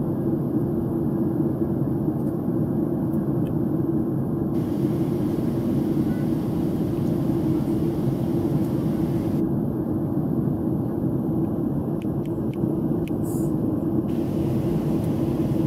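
Steady in-flight cabin noise of a Boeing 737-700: its jet engines and the rushing air over the fuselage as an even, low rumble.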